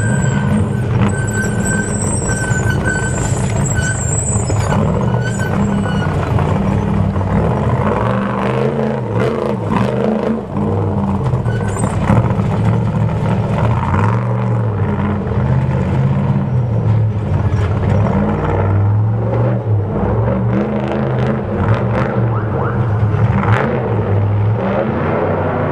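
Trophy Truck engine running hard, its note stepping up and down as the throttle changes, with many sharp clicks and crunches of the tyres over rocks and gravel.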